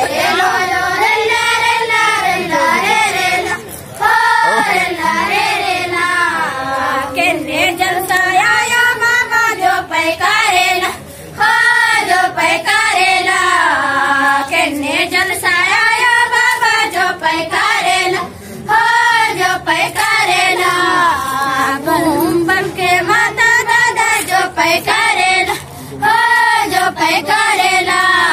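A group of young girls singing a Gondi rela pata folk song together in chorus. They sing in long phrases that break off briefly about every seven seconds.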